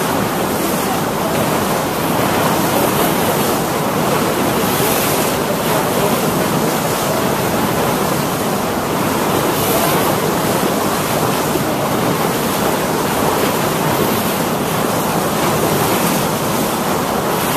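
Steady rushing noise of water and wind from a boat under way on choppy open water, with wind buffeting the microphone in repeated gusts.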